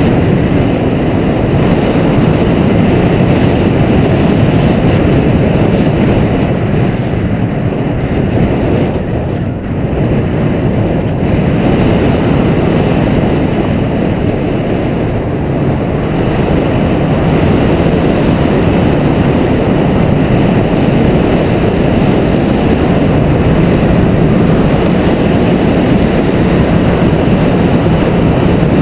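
Loud, steady rush of wind buffeting an action camera's microphone on a hang glider in flight, easing briefly about ten seconds in.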